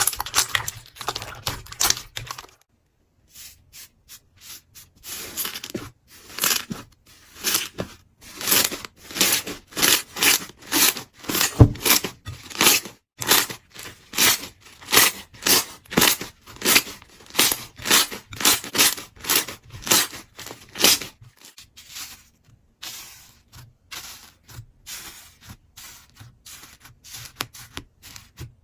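Slime being squeezed and pressed by hand, giving short crackly, tearing squishes in a regular rhythm of about two a second through the middle, softer and sparser near the end.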